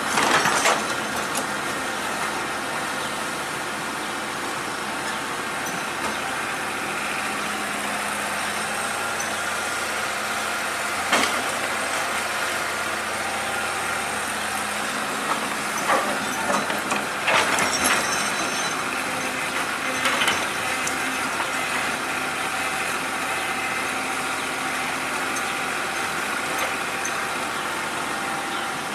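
Hydraulic excavator's diesel engine running steadily, with occasional sharp metallic knocks and clanks, the loudest right at the start and in a cluster past the middle.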